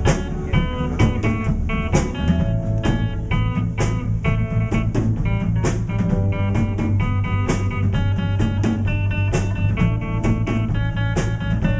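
A band playing an instrumental stretch of a rock song between sung lines: guitar over a steady drum beat, with cymbal strikes about twice a second.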